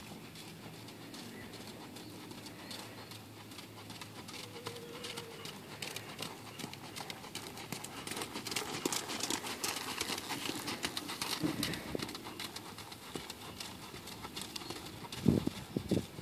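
Hoofbeats of a ridden horse moving through arena sand, growing loudest as the horse passes close by in the middle, with a few heavy thumps near the end.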